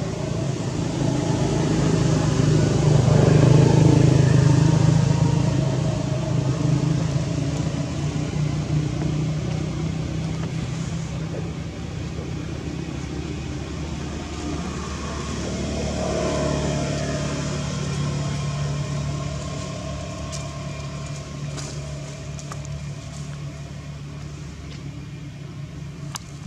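Engine noise of passing motor vehicles: a low hum that builds to a peak about four seconds in and fades, then rises again with a shifting pitch around sixteen seconds in before dying away.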